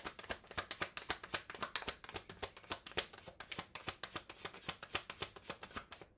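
A tarot deck being shuffled by hand: a quick, even run of crisp card snaps, several a second, which stops abruptly at the end.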